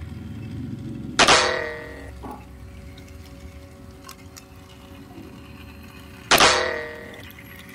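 Two AA batteries snapped one at a time into a plastic toy train's battery compartment: two sharp clicks about five seconds apart, each followed by a short metallic ringing.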